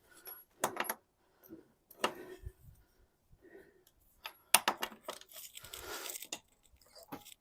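Scattered metal clicks and clinks of a hand wrench and socket being worked on a utility vehicle's tough wheel nuts, with a quicker run of clicks in the middle.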